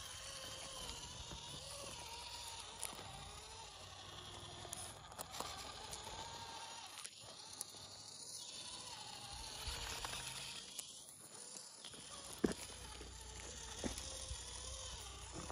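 Axial SCX24 micro RC crawler's small electric motor and gears whining, the pitch wandering up and down with throttle, with sharp knocks of tyres and chassis on loose rock, the loudest about twelve seconds in. The whine stops briefly twice, around seven and eleven seconds in.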